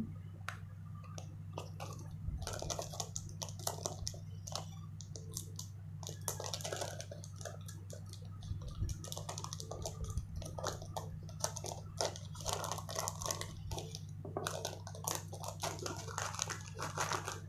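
Irregular crackling, rustling and small clicks of hands working the thin plastic-insulated wires of an Ethernet cable and a hand tool, over a steady low electrical hum.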